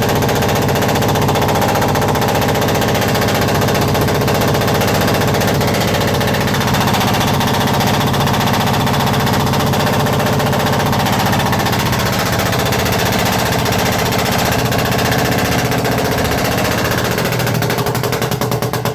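Perkins 1103 three-cylinder diesel engine running close up, a loud, rapid, steady clatter; the engine has an intake manifold misfire problem.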